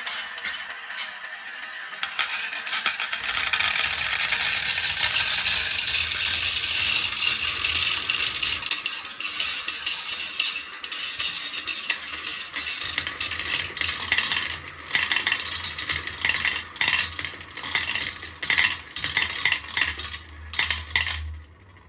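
Marbles rolling and clattering down a marble run. A dense, continuous rattle breaks up after about halfway into separate clicks and clacks.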